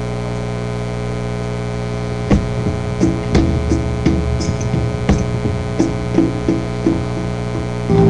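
Steady electrical mains hum in the recording. From about two seconds in come a dozen irregular clicks and knocks, and a backing track starts right at the end.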